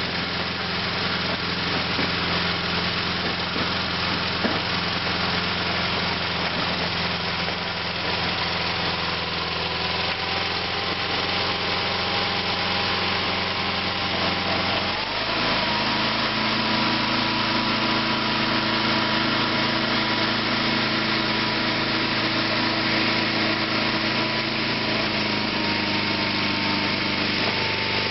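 Onan twin-cylinder engine of a Sears SS/16 garden tractor running steadily while the tractor works dirt with a front dozer blade. About halfway through, its note steps up sharply, then slowly sags.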